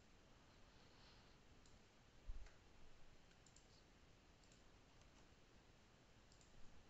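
Faint computer mouse clicks, a few scattered, against near silence, with a soft low thump about two seconds in.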